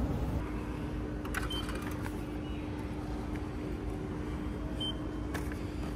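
Steady low hum of a train station concourse with one faint held tone, a few light clicks and two very short faint high beeps.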